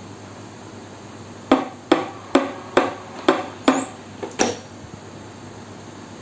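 A series of seven sharp knocks, about two a second, of a hard object struck against a hard surface, each ringing briefly, over a steady background hiss.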